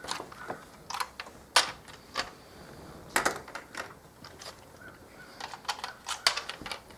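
Small hand tools being handled and tried against the screws: a dozen or so light, irregular clicks and clinks.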